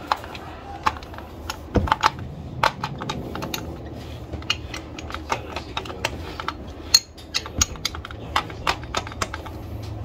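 Irregular sharp clicks and taps of hands working a power drill's chuck and bit, fitting and tightening the bit by hand while the drill is switched off.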